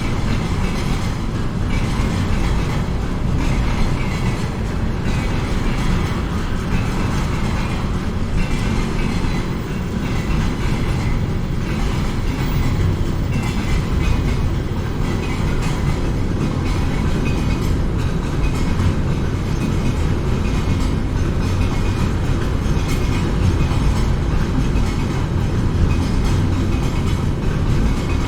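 A train running past on the rails: a steady, continuous rumble with faint, regular wheel clatter over the rail joints.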